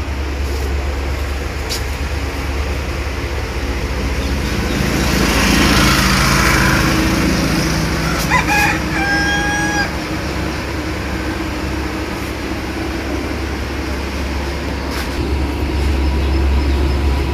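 A steady low rumble, with one bird call about eight seconds in: a short note, then a longer held note, lasting under two seconds.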